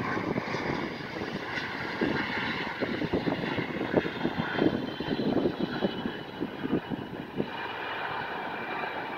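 A landing jet's engines rolling out on the runway, heard from beside the airfield: a steady jet rumble with a faint high turbine whine. The jet's engines are mounted on the sides of its fuselage. Irregular low gusty thumps run under it.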